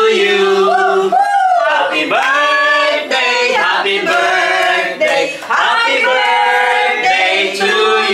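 A small mixed group of men and women singing a birthday song together, unaccompanied, with long held notes.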